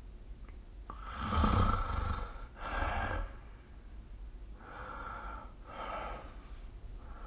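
A sleeping person snoring: a loud snore with a low rumble about a second in, a shorter one right after, then two softer snoring breaths around five and six seconds.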